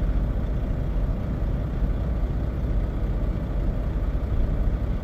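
Steady low rumbling hum, with no sudden sounds.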